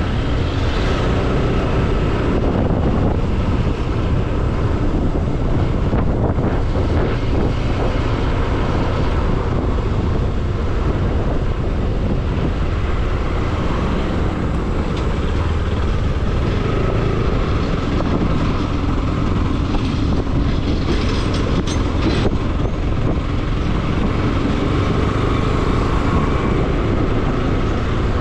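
Motorcycle riding along at steady speed: the engine running under heavy wind noise on the camera's microphone.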